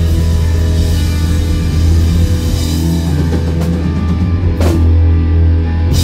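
Rock band playing live and loud: electric guitars and a drum kit.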